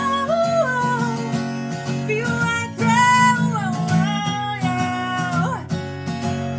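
A woman singing with strummed acoustic guitar accompaniment: a solo acoustic song performance, with long held notes that glide between pitches.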